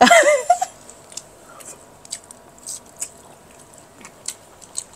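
Eating sounds: chewing and biting food, with scattered short, sharp clicks through the meal. A brief burst of voice with sliding pitch comes right at the start.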